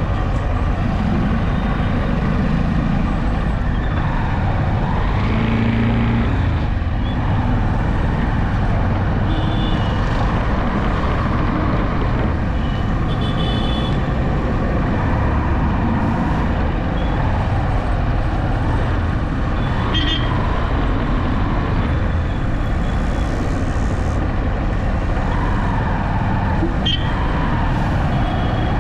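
Steady engine and road noise of a vehicle driving along a highway, with wind noise over it. A few short high tones from passing traffic stand out now and then.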